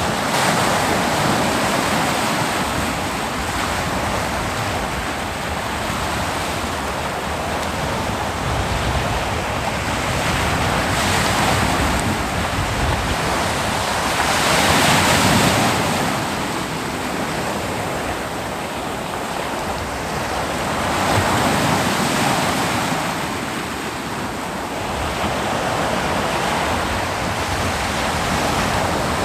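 Ocean waves breaking and washing on a beach, a steady surf noise that swells with each wave, loudest about halfway through.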